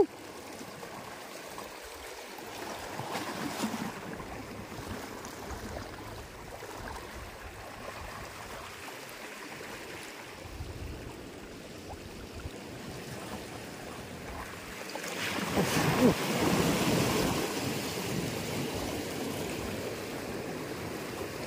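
Small waves lapping against shoreline rocks, with some wind on the microphone. About three-quarters of the way through, the water noise turns louder and busier for a few seconds.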